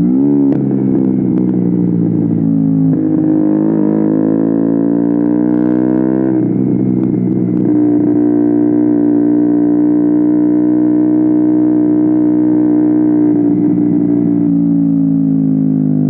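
KTM Duke 125's single-cylinder four-stroke engine through an Akrapovic exhaust with a decat link, pulling up through the gears. The pitch climbs and drops at two upshifts in the first six seconds, holds steady at cruise for several seconds, then drops near the end.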